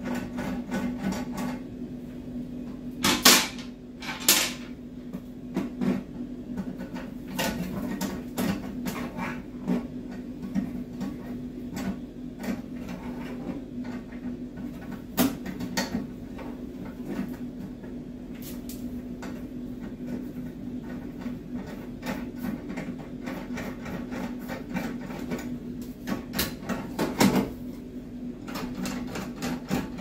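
Scattered plastic clicks and knocks as the push-rods and mounting frame of a Geberit concealed cistern's flush plate are fitted and pressed into place, two sharper ones a few seconds in, over a steady low hum.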